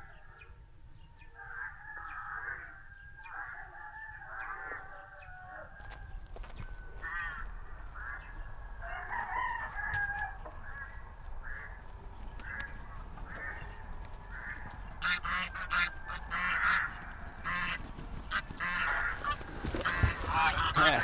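Flock of domestic geese honking repeatedly, the calls growing louder and more frequent toward the end.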